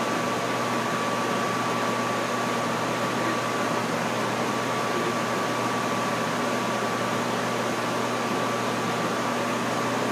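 Steady hum and hiss of room noise, with a faint constant high tone running under it.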